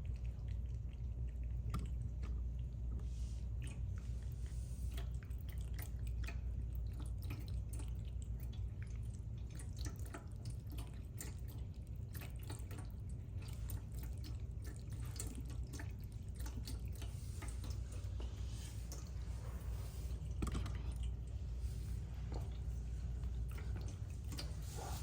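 Stainless steel pet water fountain running, its stream of water trickling and dripping into the bowl in many small irregular splashes, over a steady low hum.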